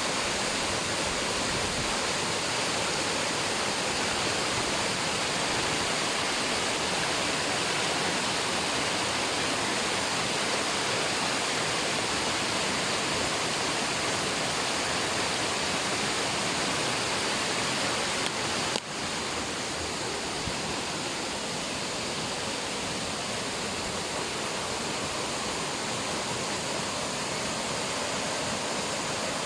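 Mountain waterfall and stream running high with snowmelt after snowfall, its water rushing and pouring in a steady, dense roar. The sound dips for an instant about two-thirds of the way through, then continues slightly quieter.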